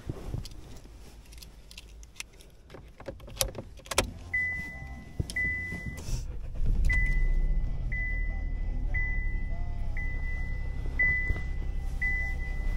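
Keys jangling and clicking at the ignition of a Chevrolet car. A dashboard warning chime then beeps about once a second, and the engine starts just past the middle and settles into a steady idle.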